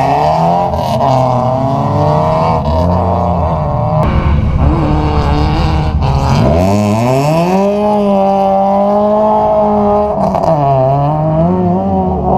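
A car engine being driven hard on a track: the revs waver at lower pitch, then climb steeply about halfway through and hold high, dip once briefly and climb back.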